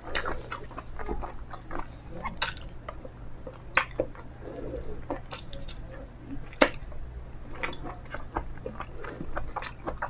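Close-up eating sounds picked up by a clip-on microphone: a person chewing a mouthful of food with rapid sharp mouth clicks and smacks, three of them louder, about two and a half, four and six and a half seconds in.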